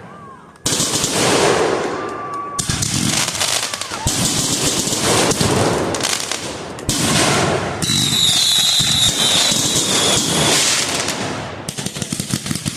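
Fireworks going off in rapid crackling volleys, one after another. About eight seconds in, a high whistle screeches over the crackle for a couple of seconds.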